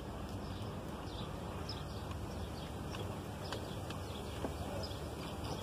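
A few light metal clicks and taps from a screwdriver working at the crankshaft thrust washers of a Caterpillar 3204 engine block, over a steady low background rumble with faint high chirps.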